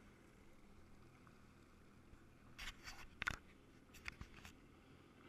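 Near silence broken about halfway through by a quick cluster of sharp clicks and knocks, the sound of the action camera's housing being handled and repositioned.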